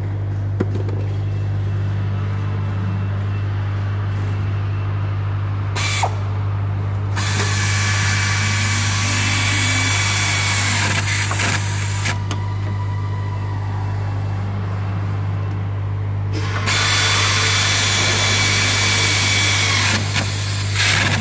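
Pneumatic nut runner driving bolts into a diesel engine's housing on an assembly line, running in two long spells of several seconds each after a short burst, over a steady low factory hum.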